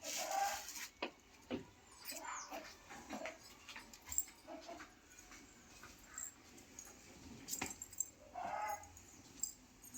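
A dog whimpering in a few short, high whines, with scattered clicks and taps between them.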